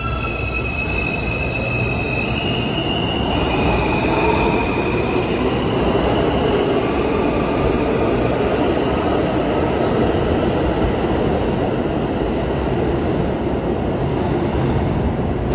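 R160 subway train pulling out. Its propulsion whines in steps that climb in pitch for the first few seconds, then give way to a steady rumble of wheels on rail as the train gathers speed.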